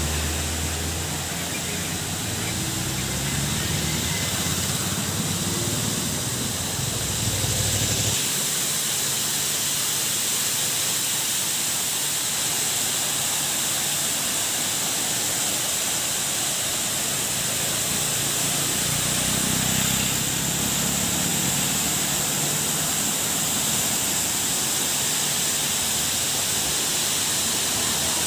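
Steady rushing hiss of water pouring down a man-made waterfall. A low rumble sits under it for the first eight seconds or so and stops abruptly.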